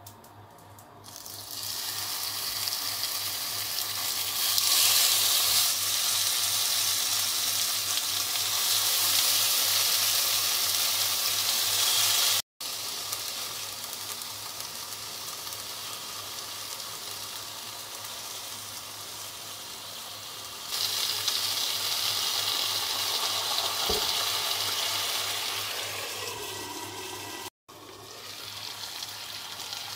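Chicken tenderloin skewers sizzling in lightly oiled frying pan, the sizzle starting about a second in and running in louder and softer spells, broken off abruptly twice. A steady low hum runs underneath.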